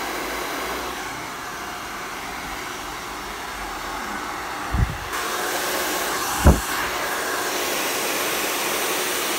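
Handheld hair dryer blowing steadily while hair is being blow-dried. About five seconds in its sound turns brighter, and two dull bumps come in the middle.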